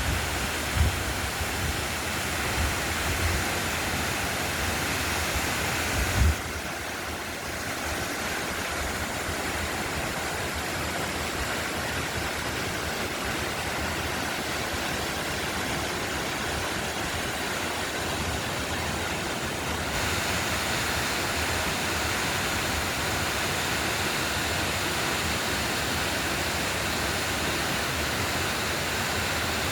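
A 120 ft waterfall rushing in a steady, dense roar of falling water. A few low thumps come in the first six seconds.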